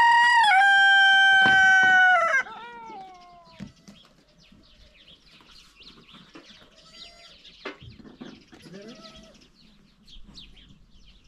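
Rooster crowing once: a long, loud held note that droops and breaks off about two and a half seconds in, followed by faint scattered short calls.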